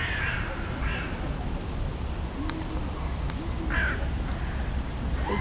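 A crow cawing, three harsh caws: near the start, about a second in, and near four seconds, over a steady low background rumble.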